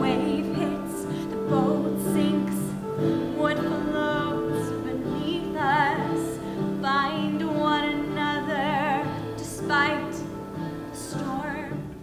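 A woman singing a musical-theatre song in a trained voice with wide vibrato, over sustained instrumental accompaniment.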